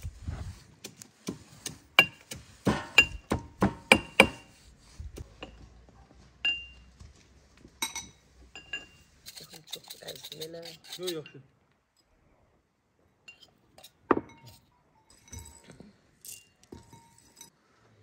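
Pestle pounding in a small mortar: a quick run of sharp, ringing clinks lasting about three seconds, then a few single strikes spaced out. A voice is heard briefly about ten seconds in.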